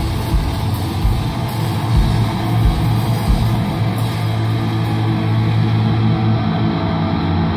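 A rock band playing live: electric guitars over a held low bass line.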